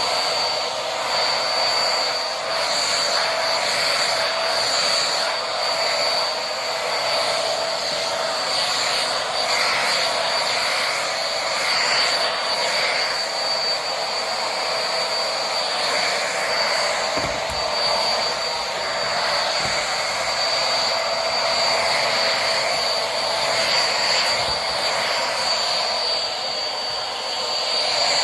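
Vacuum cleaner fitted with a roller brush head, running steadily: a high motor whine over the rush of air as it is worked back and forth over the floor, with a few dull knocks near the middle.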